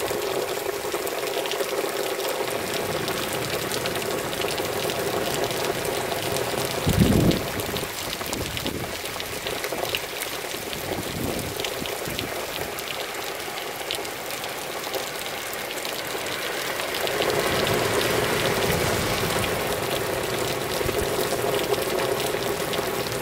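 Pouring rain, a steady hiss, with water streaming down close by. A brief low thump about seven seconds in is the loudest moment, and the rain swells louder about two-thirds of the way through.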